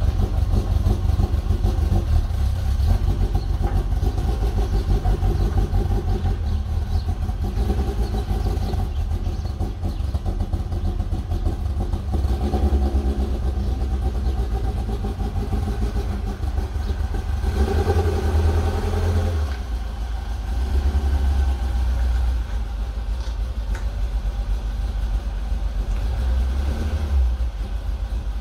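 Ford Cortina Mk1's four-cylinder engine running at low revs as the car reverses out and manoeuvres back and forth on light throttle. The note swells and eases a few times.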